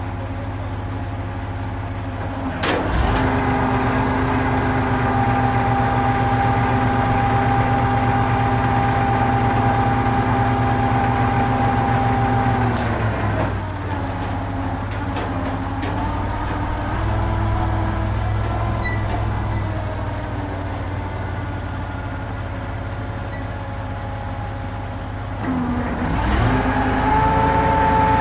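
Truck crane's engine idling, then revving up about three seconds in and holding a steady higher pitch for about ten seconds while the crane unloads concrete blocks. It drops back to idle and revs up again near the end.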